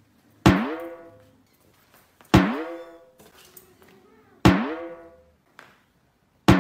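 A comedy sound effect plays four times at an even beat, about two seconds apart: each is a sharp hit whose pitch bends quickly upward, then rings out and fades.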